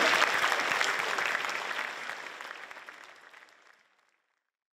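A large crowd applauding, many hands clapping at once, fading out to silence about four seconds in.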